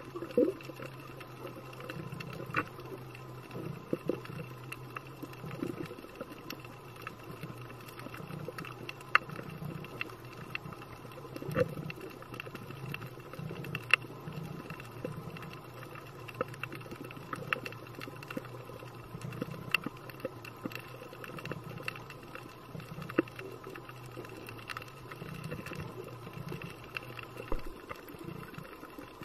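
Underwater ambience from the camera's microphone: irregular sharp clicks and crackle over a steady low hum.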